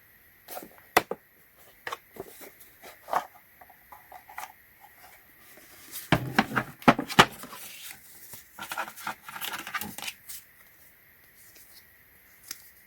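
Plastic tool case and its contents being handled: scattered clicks and knocks, a cluster of louder knocks about six seconds in, then soft rustling.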